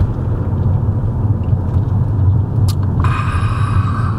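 Steady low rumble of a moving car, heard from inside the cabin. About three seconds in, a brighter, higher sound starts suddenly and joins the rumble.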